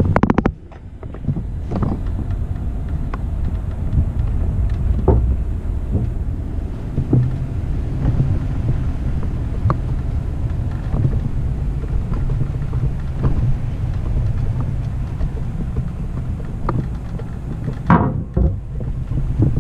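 Wind buffeting the microphone as a low, steady rumble, with scattered light clicks and knocks.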